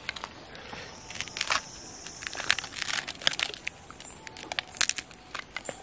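A knife scraping and peeling the charred skin off a roast yam: irregular dry crackling and crunching scrapes.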